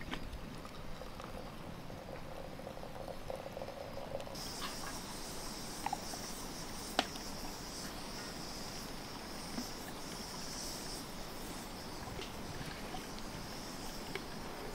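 Hot water trickling from a samovar's tap into a glass teapot. About four seconds in it gives way to a steady high hiss with a few sharp pops from a wood campfire; the loudest pop comes about seven seconds in.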